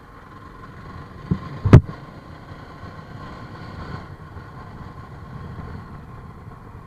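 Motorcycle engine running steadily at low revs in slow traffic. A little under two seconds in there is one sharp knock, the loudest sound, with a lighter click just before it.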